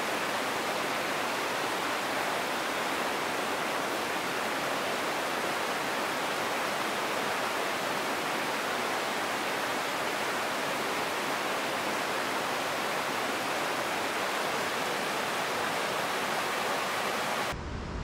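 Fast mountain river rushing over rocks: a steady, even noise of white water that stops abruptly just before the end.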